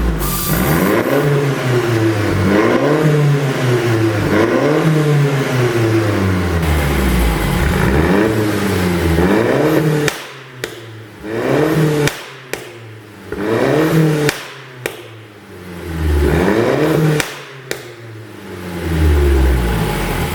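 Mercedes-Benz W204 C200 CGI engine, with a pop-and-bang exhaust tune, being revved up and let fall over and over, about every two seconds. In the second half the revs drop away more sharply, and sharp single pops crack from the exhaust on the overrun as each rev falls.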